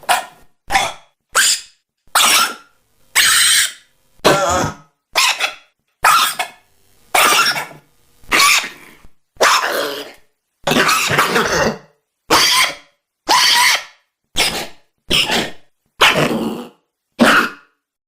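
A string of about eighteen short, separate cough-like vocal noises, about one a second, each starting and stopping abruptly with silence between.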